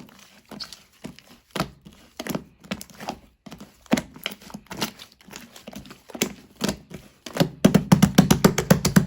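Slime being squeezed and worked by hand, making irregular sticky clicks and pops, with a quick, louder run of clicks in the last second and a half.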